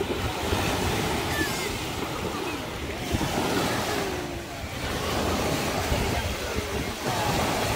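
Sea surf breaking and washing over the shore in the shallows.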